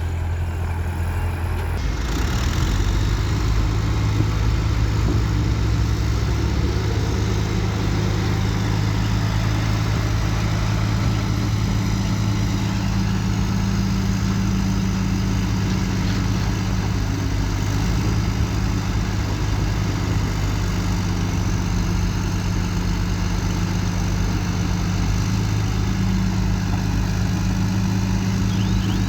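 Komatsu D21P bulldozer's diesel engine running steadily under work, a low, even drone that gets louder and fuller about two seconds in.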